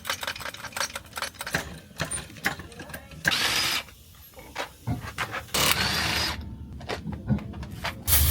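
Tool work with a run of rapid ratchet-like clicking, and two short bursts of a small power tool, each about half a second long.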